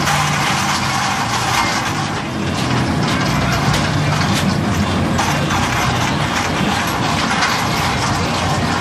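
Steady, loud fairground machinery din, an even rumble and hiss with no clear breaks, with faint voices mixed in.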